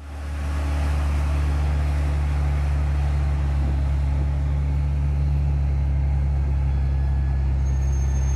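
A large engine running steadily at a constant speed: a low, even drone with no knocks, crashes or revving.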